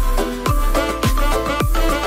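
Background music: a track with a deep kick drum about twice a second, its pitch dropping on each beat, under held chords.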